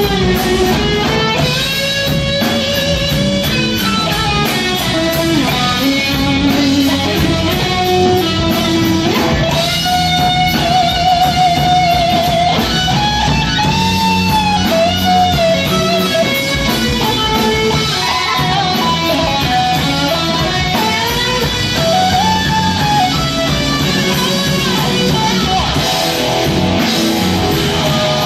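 Live rock band playing loud: a lead electric guitar line that bends and wavers in pitch over bass guitar and a drum kit with steady cymbal strokes.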